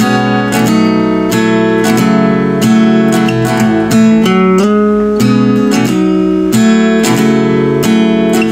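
Acoustic guitar being strummed, an instrumental intro with the chords changing every second or so, recorded through a Maono Gamerwave DGM20 USB condenser microphone.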